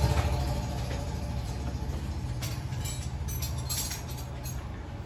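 Low, steady hum of a running vehicle engine that slowly fades, with faint light metallic ticks over it.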